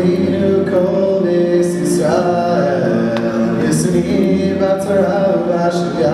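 All-male a cappella vocal group singing a song into handheld microphones, several voices in harmony over a low sustained part.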